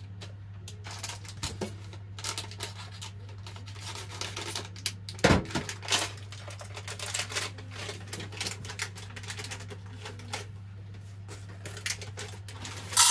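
A small plastic bag crinkling and rustling as it is handled, a run of light crackly clicks, with one sharper knock about five seconds in, over a steady low hum.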